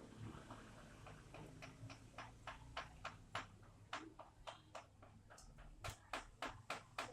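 Rainwater dripping: single drops landing as sharp separate clicks, irregular and a couple a second at first, coming faster near the end.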